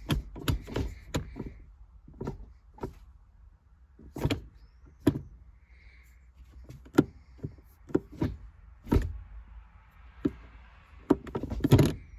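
Subaru WRX's six-speed manual gear lever, fitted with an MTEC shift knob, being moved through the gears: a string of irregular clicks and clunks, the loudest cluster near the end.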